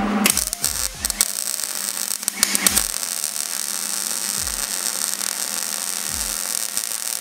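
Electric arc welding on a steel go-kart frame, tack-welding the live axle's bearing hangers in place: a steady crackling hiss from the arc that starts about a third of a second in, with a few sharp pops in the first three seconds.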